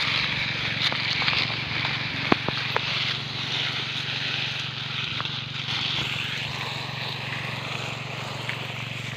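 Water jet from a hose spraying onto leaf litter and undergrowth, an even hiss, over a steady low motor hum.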